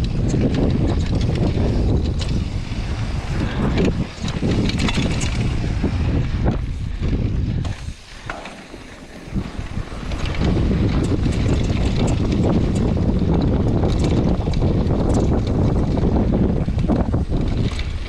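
Wind buffeting the microphone of a mountain bike's action camera during a fast descent on a dirt trail, with the tyres crunching over dirt and gravel and the bike clattering over bumps. It drops away for about two seconds around the middle, then comes back just as loud.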